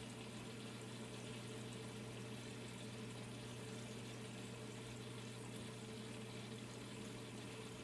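Steady room tone: a low hum with a fainter higher tone over an even hiss, with no separate sound rising above it.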